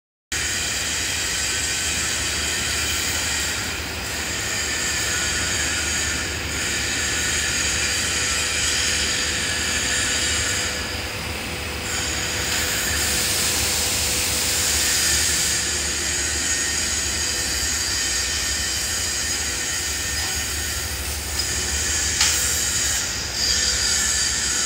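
Steady industrial din of a metal-fabrication workshop: a continuous high whine and hiss of machinery over a low hum, swelling and easing a little, with one sharp clank near the end.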